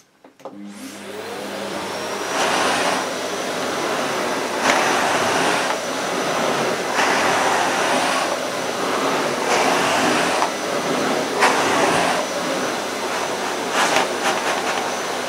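Vax VCC-08A commercial tub vacuum cleaner switched on with a click. Its motor whine rises over the first second or two as it spins up, then it runs at maximum suction. The floor head is pushed back and forth on carpet, and the sound swells with each stroke.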